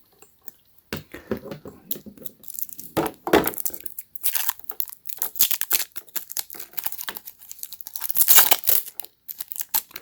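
Packaging being crinkled and torn by hand: irregular rustling and tearing from about a second in, as a gaming headset is handled and unwrapped.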